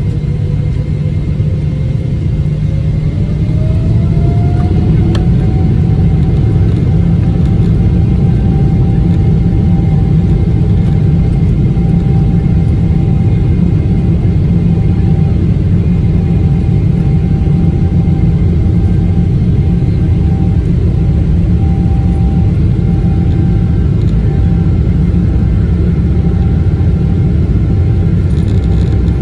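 Airliner turbofan engines spooling up to takeoff thrust during the takeoff roll, heard from inside the cabin: a deep rumble with a whine that rises over the first few seconds, then holds steady as the jet accelerates down the runway.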